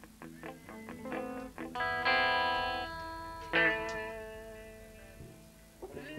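Electric guitar played on its own: a run of quick plucked notes, then a chord struck about two seconds in and another a second and a half later, each left to ring and fade.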